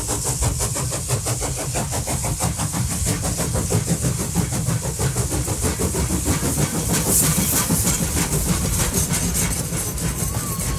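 A train running, with a fast, even rhythmic beat that keeps on steadily and loudly throughout.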